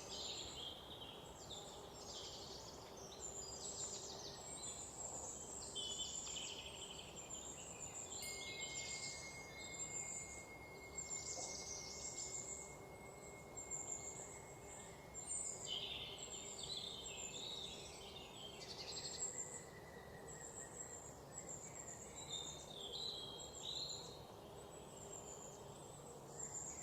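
Forest ambience: several songbirds chirping and trilling over a low steady background hum of the woods, with a thin high steady whine, insect-like, held from about a third of the way in to about three quarters through.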